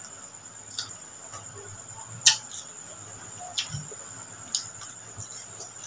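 Close-up eating sounds: about five sharp clicks and smacks while chewing grilled chicken, the loudest about two seconds in, over a steady high-pitched whine.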